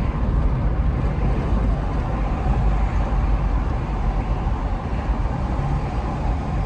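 Steady low rumble of a car being driven along a road.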